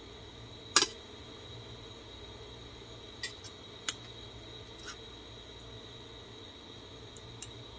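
Metal fork and spoon clinking and scraping against a ceramic bowl and plate, a few sharp clinks with the loudest about a second in, over the steady hum of an electric desk fan.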